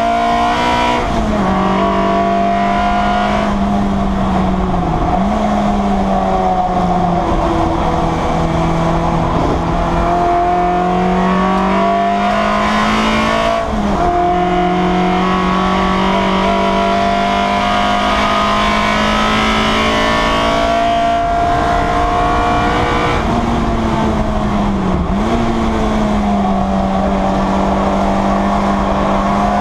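Citroen Saxo race car's four-cylinder engine at high revs on track, heard from inside the stripped-out cabin. The engine note holds high and steady, then drops or dips briefly a handful of times, as on gear changes and lifts.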